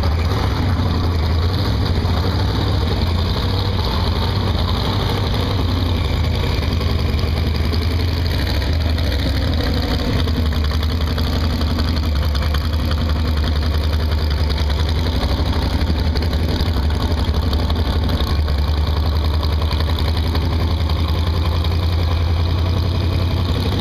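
Ford Mustang LX coupe race car's engine idling steadily, a loud, low, even idle.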